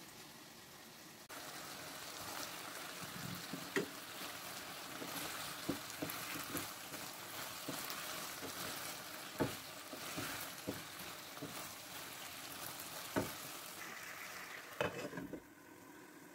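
Fish and drumstick pieces sizzling in hot oil in a nonstick frying pan while a wooden spatula stirs them, with a handful of sharp knocks of the spatula against the pan. The sizzle starts abruptly about a second in and becomes quieter near the end as the pan is covered with a glass lid.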